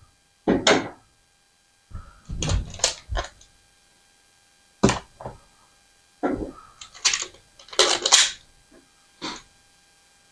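Strips of tape pulled off a handheld tape dispenser and torn off, in several short ripping bursts with pauses between, along with light knocks as the dispenser is handled and set down.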